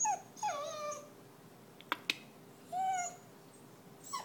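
Greater Swiss Mountain Dog puppy whining in three short high-pitched cries, the longest sliding down in pitch. Two sharp clicks come about two seconds in.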